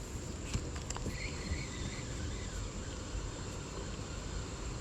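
Steady high-pitched insect chorus over outdoor river ambience, with a few faint clicks and a brief faint chirp about a second in.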